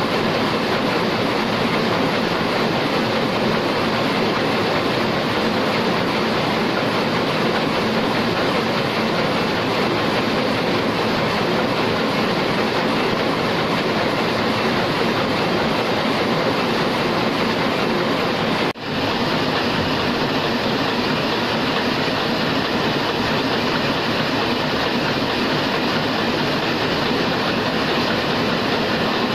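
Heidelberg SORMZ two-colour offset press running at production speed: a loud, steady mechanical clatter of rollers, grippers and sheet feed. It drops out for a moment about two-thirds of the way in, then resumes with a faint steady high whine added.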